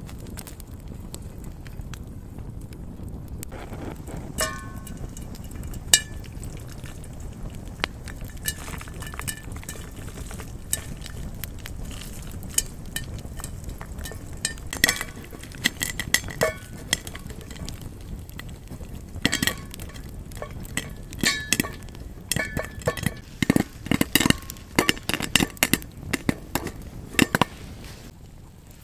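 Camp cookware and utensils clinking and knocking together: scattered sharp taps, some leaving short ringing notes, coming thicker and faster in the second half.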